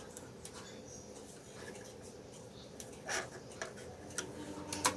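Quiet room with a faint steady hum and a few light clicks, one about three seconds in and a sharper one near the end.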